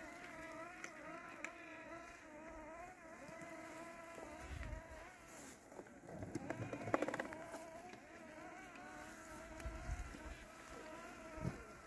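Landxcape 790 robotic lawn mower's brushless motor running with a steady, slightly wavering buzzing whine as it mows tall weeds. A brief burst of rapid clicking comes about seven seconds in.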